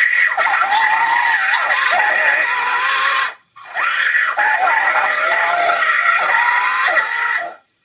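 Cartoon girl's wailing cry, pitch wavering up and down, distorted by stacked audio effects. It comes in two long bursts of about three seconds each, with a brief gap between them, and each burst cuts off abruptly.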